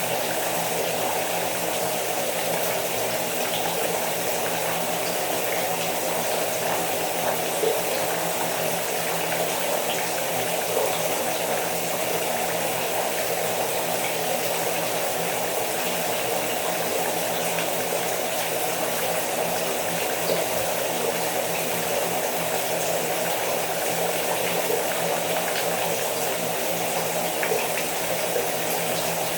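A rain shower: falling water rushing steadily and evenly, with no let-up or change.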